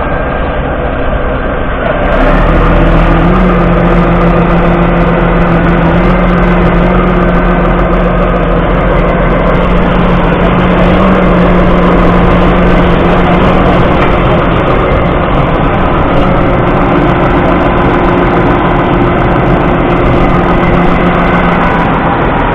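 Case IH Puma 175 CVX tractor's 6.7-litre six-cylinder diesel running steadily, growing louder about two seconds in and holding a steady hum with a few held tones.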